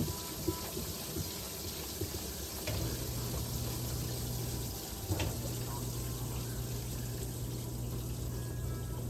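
Electrolux Ecologic 12 kg washing machine in its intermediate spin, water running out as it drains. A low steady hum from the machine comes in about a quarter of the way through, breaks off briefly near the middle, then carries on.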